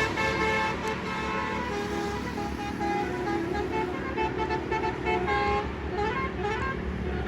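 Bus telolet horn, a multi-tone air horn, playing a tune of held notes that step from pitch to pitch, over the low rumble of traffic.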